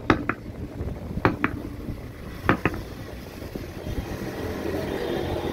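E-bike hub motor wheel lifted and struck down onto a wooden block three times, each knock followed quickly by a lighter rebound knock, driving the motor's side cover plate home onto its housing.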